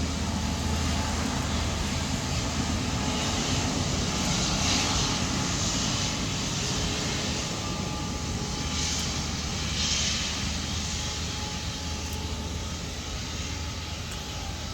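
Airliner passing at close range, its engines making a steady, rumbling noise with a wide hiss. The noise swells around the middle and fades over the last few seconds as the plane moves away.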